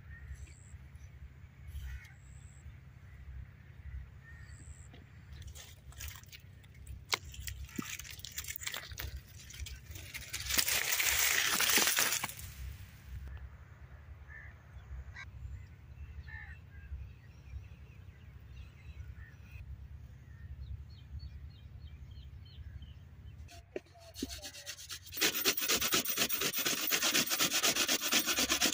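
White radish being grated on a metal box grater: a fast, steady rasping scrape that starts near the end. Before it there are scattered light clicks and scrapes from handling the radishes, and a loud rush of noise for about two seconds partway through.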